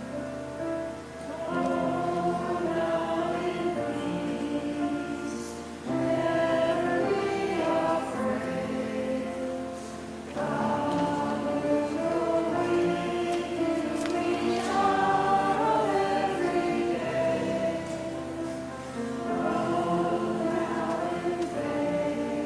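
Congregation singing a short sung response together in unison, in phrases of about four seconds with short breaths between them.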